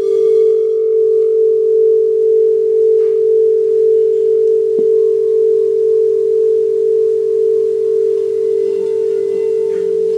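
Singing bowl sounding a steady, sustained tone with a slow, wavering pulse in its loudness.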